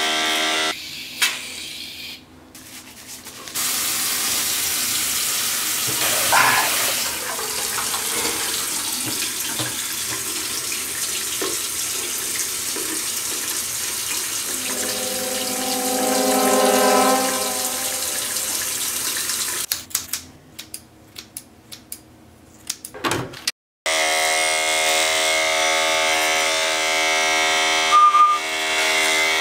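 Electric beard trimmer buzzing, cutting off within the first second. A long steady hiss follows, with a low pitched tone swelling in the middle, then a run of sharp clicks and a moment of silence, and the trimmer buzzing again for the last few seconds.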